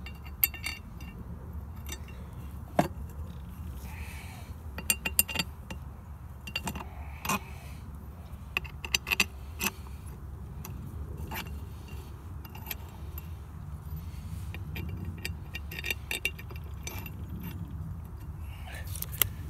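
Irregular light metallic clinks and taps of small metal parts and hand tools being handled while refitting parts on a pump, over a steady low rumble.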